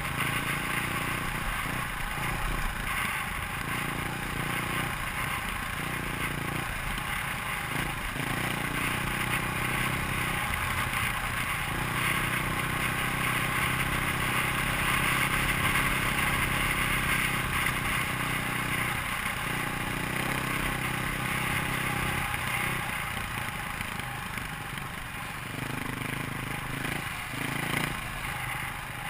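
KTM dirt bike engine running on a dirt trail, its revs rising and falling with several short drops as the throttle is eased off, over a loud steady rush of wind on the microphone.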